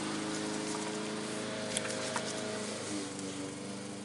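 Steady drone of lawn mower engines in the background, its pitch shifting slightly about three seconds in, with a couple of faint clicks.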